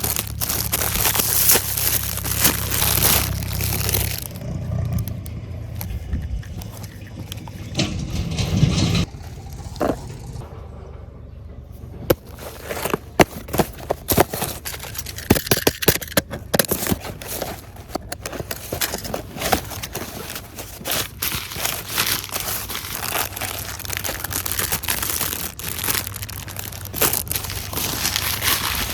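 Crinkling, crunching and scraping handling noises with many scattered small clicks. The clicks grow denser from about twelve seconds in.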